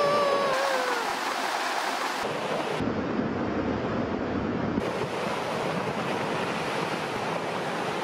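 Rockfall on a mountain cliff: a steady rushing noise as rock and debris pour down the slope. A held scream sags in pitch and stops about a second in.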